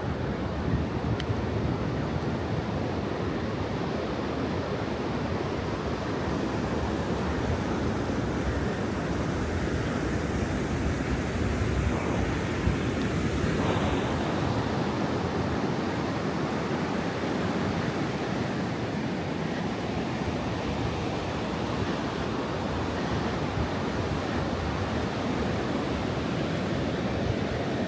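Ocean surf washing on the beach in a steady rush, with wind buffeting the microphone.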